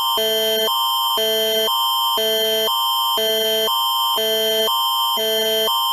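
The Canadian Alerting Attention Signal, the Alert Ready emergency alert tone, announcing an emergency alert. A steady high tone sounds under two chords that alternate every half second, a higher one and a lower one.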